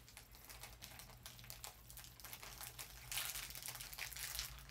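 Crinkling packaging of a small blind bag being torn open and worked with the fingers: a fast, irregular crackle that grows louder about three seconds in.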